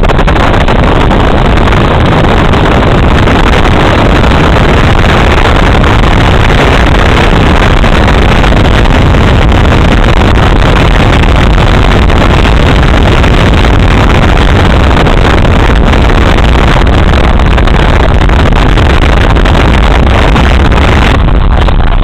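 Steady, loud rush of wind and road noise at the side window of a moving car, overloading the microphone, with the car's running underneath.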